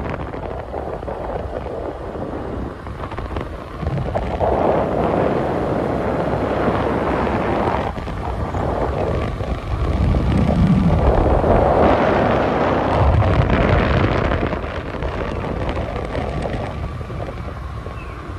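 Wind buffeting the microphone of a moving scooter, over the scooter's running engine and road noise; the wind swells about four seconds in and again for several seconds around ten seconds in.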